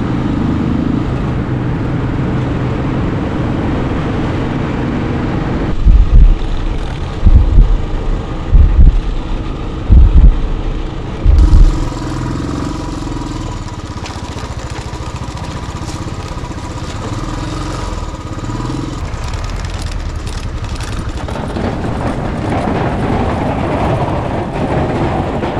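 Motorcycle engine running steadily under way, heard from the handlebars. About six seconds in, a string of loud low thumps hits the microphone for several seconds; after that the engine runs on under a steady rush of noise.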